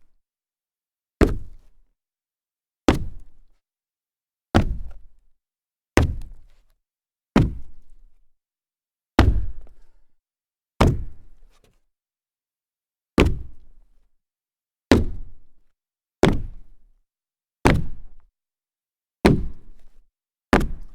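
Sneakers landing from large jumps on a solid wood floor: a series of single heavy thuds, about one every second and a half, each dying away quickly.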